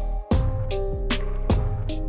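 Background music with a steady drum beat and held notes.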